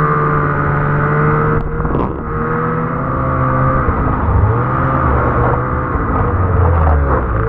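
Snowmobile engine heard from the rider's seat. It runs steadily at cruising speed at first, then its pitch rises and falls several times with throttle changes as the sled slows. A couple of sharp knocks come about two seconds in.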